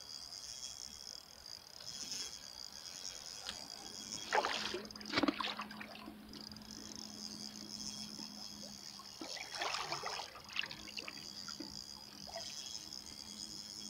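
Water swishing and splashing twice, about four seconds in and again near ten seconds, as a hooked wels catfish thrashes at the surface, over a steady faint high-pitched hiss; a low hum sets in around the first splash.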